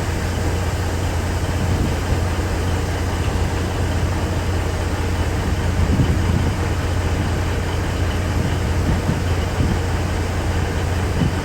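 Steady engine drone and road noise inside a moving truck's cab.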